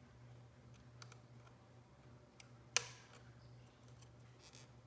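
A few faint clicks and one sharper click about three seconds in, from small plastic calculator parts being worked by hand, over a faint steady hum.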